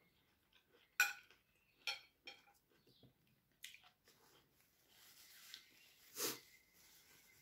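A metal fork and spoon click sharply against a white plate four times in the first four seconds while cutting and spearing boiled banana. Near the end comes a louder, longer mouth noise as a piece is bitten.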